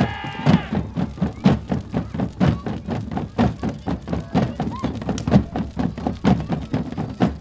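Drums beaten by a group of drummers in a loud, uneven pounding rhythm of about two to three hits a second. A held pitched note dies away about half a second in.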